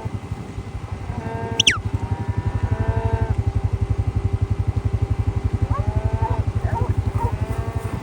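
Farm motorbike engine idling with a steady, even putter. About one and a half seconds in, a short sharp whistle falls steeply in pitch, and cattle low faintly in the background.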